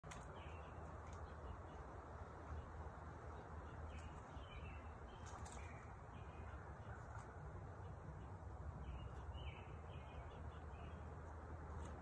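Quiet woodland ambience: small birds chirping on and off against a low steady rumble, with a few faint sharp taps scattered through.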